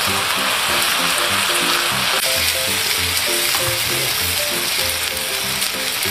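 A whole trevally (ikan kuwe) sizzling in melted butter and sweet soy sauce on a non-stick grill pan, a steady frying hiss. Background music plays underneath.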